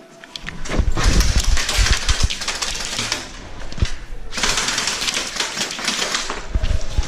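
Airsoft guns firing rapidly, a dense crackle of shots in two long stretches with a short break between them.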